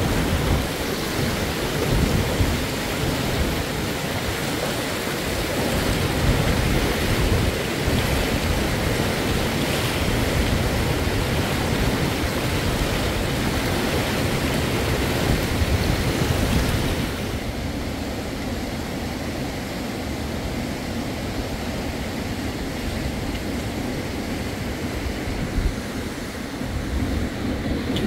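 Steady rushing of a fast-flowing river. About two-thirds of the way through it drops to a quieter, duller rush.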